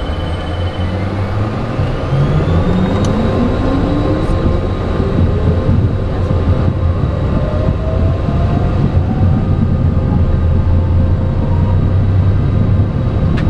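Citation Sovereign business jet's turbofan engines heard from the cockpit: a steady low rumble with rising whines as the engines spool up over several seconds.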